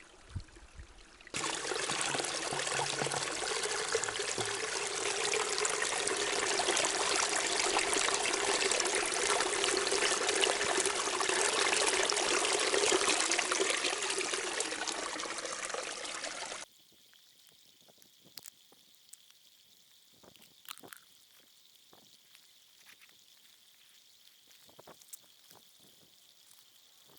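Spring water pouring steadily from a pipe, close by, with a strong even splashing rush. It starts about a second in and cuts off suddenly after some fifteen seconds, leaving near silence with a few faint clicks.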